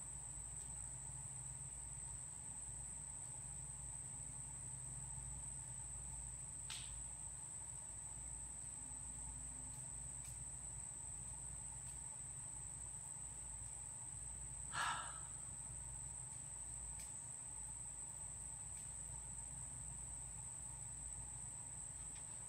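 A steady high-pitched chorus of insects, unbroken for the whole stretch, over a low steady rumble. About fifteen seconds in, a brief louder sound stands out.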